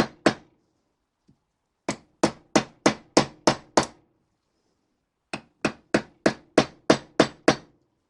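Hammer blows driving a new wheel-bearing race into a classic Mini rear hub, struck around the race so that it goes in straight. The sharp, ringing taps come in two runs of seven or eight, about three a second, with a short pause between.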